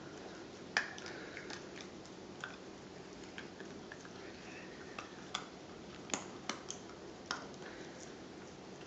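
Sheltie puppy chewing on a plastic toothbrush: irregular sharp clicks of its teeth on the brush, the loudest about a second in and a quick cluster a little past halfway.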